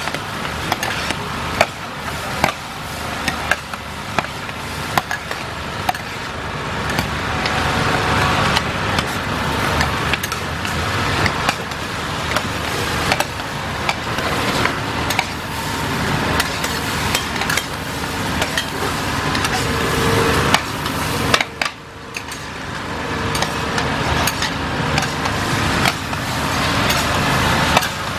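Metal spatulas and ladles scraping and clanking against large shallow woks as fried rice and fried kuey teow are stirred and tossed, with irregular sharp knocks over a steady background noise.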